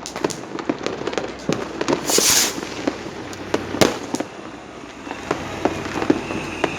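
Many firecrackers and fireworks going off all around, sharp bangs at irregular intervals, with a short hissing burst about two seconds in and a thin whistle near the end, as from a whistling rocket.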